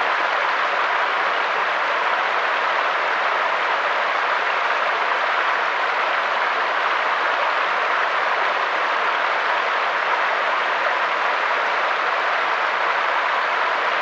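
Mountain stream flowing and splashing over rocks: a steady, even rushing hiss with no deep rumble.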